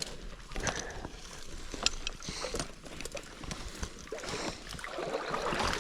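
Water splashing and sloshing as a hooked trout is brought into a landing net, over the steady rush of a small river.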